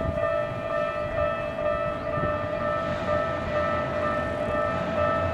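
Japanese level-crossing warning bells ringing steadily, several electronic tones repeating without pause, with a low rumble underneath.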